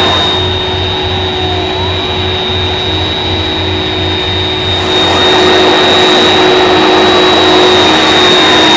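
Airbus A300-600ST Beluga's twin turbofan engines running at taxi power: a steady dense rush with a high, constant whine over it. For a few seconds near the start the sound is somewhat quieter and duller.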